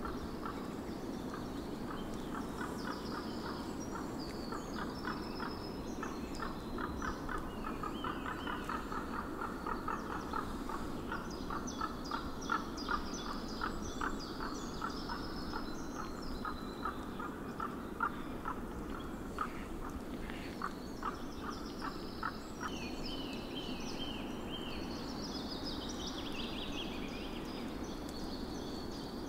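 Birds calling in wild country: a long, rapid series of pulsed calls for the first two thirds, with higher song phrases over it, most of them near the end, over a steady low background hum.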